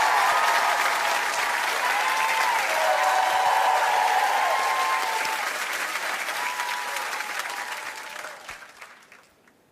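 Studio audience applauding and cheering, the clapping dying away near the end.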